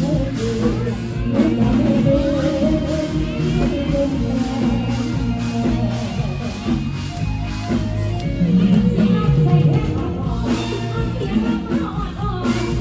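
Live band music with a singer: a sung melody over a steady drum-kit beat and bass.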